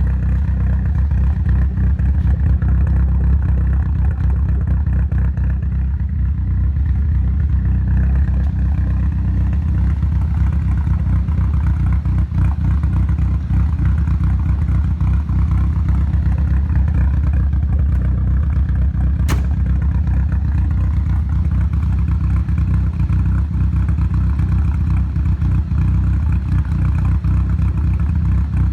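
Nissan Silvia S15's inline-four engine running at a rough idle, steady overall with a slightly fluttering note. The roughness appeared only after the engine was removed and reinstalled, and its cause is not yet found.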